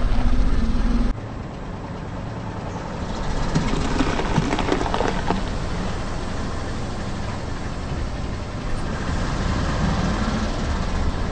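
Car tyre rolling over bell peppers on asphalt, with a cluster of wet crunching and crackling strokes about three to five seconds in, over the car's engine running low. A loud low rumble at the start cuts off suddenly about a second in.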